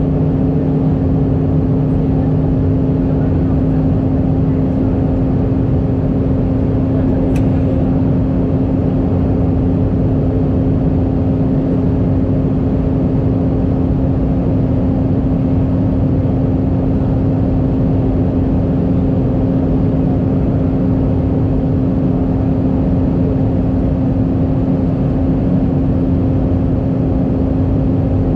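Steady cabin drone of an Airbus A319 in flight, heard inside the cabin over the wing: engine hum with a strong steady tone over an even rush of airflow. A lower tone drops out about five seconds in.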